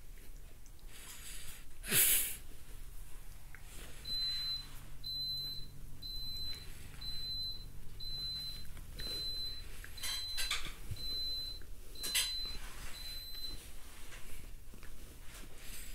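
A short high electronic beep repeating about once a second, around ten times, starting about four seconds in. Under it, rustling and scuffing of a puppy play-biting a hand on bedding, loudest about two seconds in.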